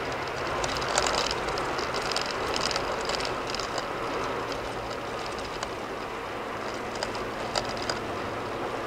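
Car tyres rolling on a concrete-slab highway at highway speed, heard from inside the cabin: a steady road roar over a low hum, with scattered sharp ticks, most of them between one and four seconds in and two more near the end.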